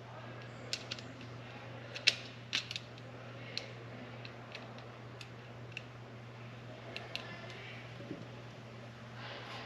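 Small irregular clicks and ticks from handling the metal hose clamp of a pod air filter while it is slid into place on a carburetor. The sharpest click comes about two seconds in, with a steady low hum underneath.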